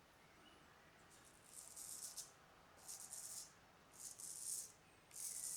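Filarmonica 4/8 straight razor scraping through lathered stubble in four short strokes, about a second apart, each a brief high-pitched rasp.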